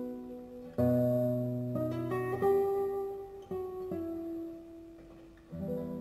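Background music: an acoustic guitar picking single notes and chords at a slow pace, each one ringing and fading before the next.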